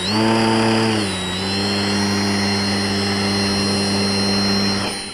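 A balsa RC model plane's motor and propeller running at high power while held for a hand launch: a steady buzzing drone with a thin high whine, its pitch settling slightly lower about a second in, falling away shortly before the end.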